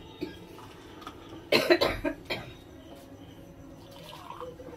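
Boiled milk being poured from a small steel tumbler into glass coffee cups. A loud cough breaks in about one and a half seconds in.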